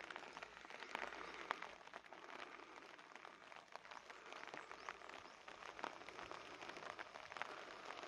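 Light rain falling: a faint, steady patter of many small drop ticks.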